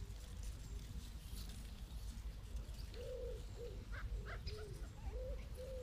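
A pigeon cooing: a run of short, soft hoots, about two a second, starting about three seconds in, over a steady low rumble.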